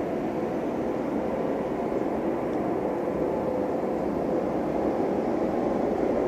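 A steady low rumbling drone from the sky, slowly growing a little louder, of the kind posted as a 'strange sound in the sky'; its actual source is not identified.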